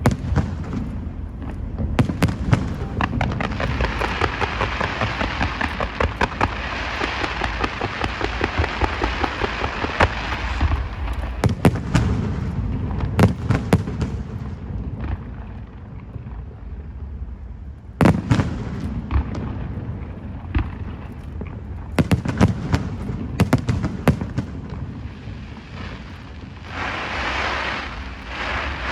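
Fireworks going off: a steady run of sharp bangs, with a dense crackling shower for several seconds early on and another hissing burst near the end. Single louder booms stand out a few times in the middle.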